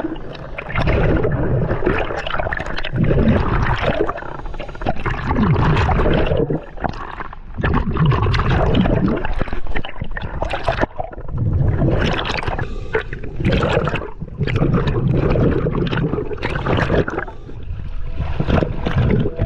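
Water bubbling and gurgling, heard through an underwater camera, in noisy bursts that swell and fade every second or two.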